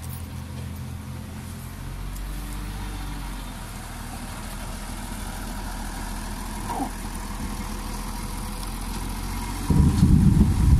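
Dump truck's diesel engine running steadily while the bed tips and the load of dirt pours out onto the pile, with a loud low rumble near the end.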